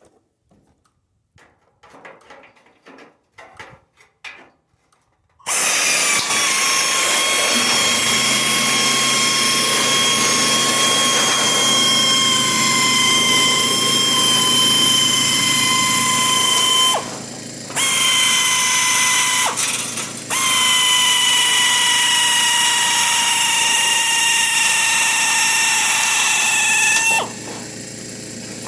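Pneumatic air shears running with a loud, steady high whine, the pitch sagging slightly as they run, stopping briefly twice and cutting off near the end; a few faint clicks come first. Underneath, from a few seconds after the shears start, the air compressor's motor runs with a steady low hum that carries on after the shears stop.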